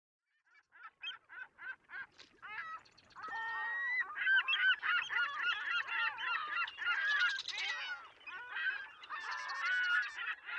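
A flock of birds calling. At first single calls come about three a second, then from about three seconds in many calls overlap.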